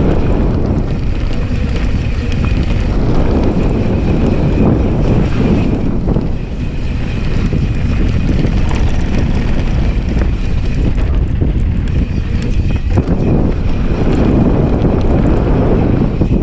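Heavy wind buffeting on the camera microphone during a fast downhill run on a 2020 Specialized S-Works Enduro mountain bike, with its tyres rolling over a dry dirt trail.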